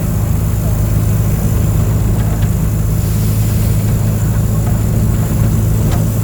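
Mercedes-Benz OF 1722M bus's diesel engine running steadily with a deep, even hum that holds one pitch.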